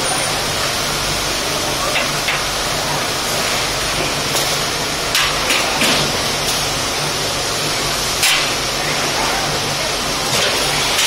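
Steady loud hiss with a low hum under it, broken by a few light knocks of steel shelving parts being handled.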